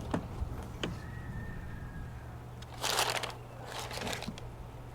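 Handling noises of packaging: a couple of light clicks, then two short rustles about three and four seconds in, as the ties holding an air rifle in its case are worked loose.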